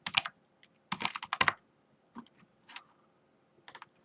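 Typing on a computer keyboard: a quick cluster of keystrokes at the start, a dense flurry about a second in, then a few scattered single keystrokes.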